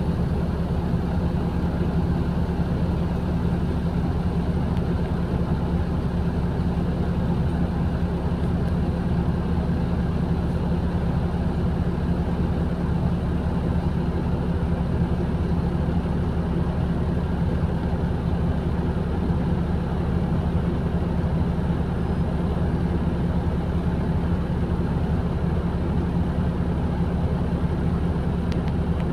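A city bus's engine running with a steady low hum, heard from inside the passenger cabin.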